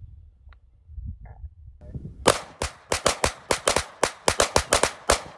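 Rapid gunfire from two shooters firing together: about fifteen sharp shots in three seconds, in an uneven rhythm, starting a little over two seconds in. Before the shots there is only a low rumble.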